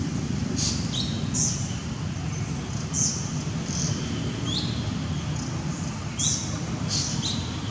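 Repeated short, high-pitched bird chirps, each a quick upward note, coming every second or so over a steady low rumble.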